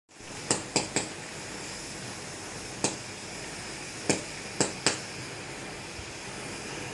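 Sharp short knocks or taps, seven of them at irregular intervals (three quick ones in the first second, more about three, four and five seconds in), over a steady background hiss.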